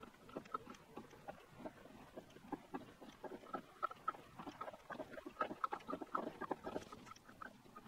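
Triumph 675 Daytona upside-down cartridge fork damper being pumped up and down by hand through fresh fork oil. It makes faint, quick, irregular gurgles as trapped air is forced out: the damper is being primed and bled.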